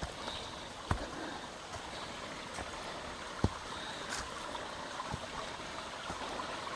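Rushing water of a mountain creek, a steady hiss, with a few sharp knocks, the loudest about three and a half seconds in.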